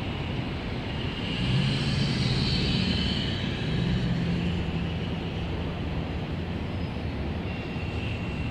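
City street traffic: vehicle engines running and tyres passing, with a city transit bus pulling through the intersection. The engine hum swells about a second in and eases off past the middle.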